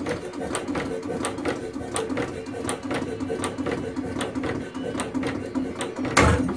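4 hp Domestic hit-and-miss gas engine running, coasting between firings with a steady light clicking of its mechanism, about three to four clicks a second, over a low hum. It fires once, louder, near the end.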